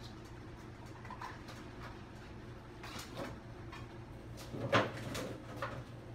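Kitchen handling noises: scattered knocks and clatters, the loudest about five seconds in, over a steady low hum.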